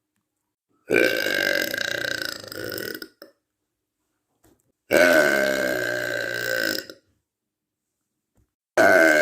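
A young woman's long, loud burps, three in a row, each lasting about two seconds with silence between them; the third is still going at the end.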